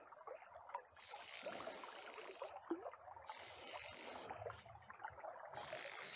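Fly reel's click-and-pawl ratchet whirring in several spells of a second or so while a hooked sea trout is played, over the rush of river current.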